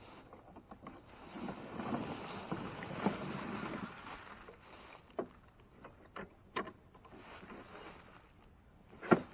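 Rustling and scraping of hands working on a push lawnmower for a few seconds, followed by a few separate sharp clicks and knocks; the engine is not running.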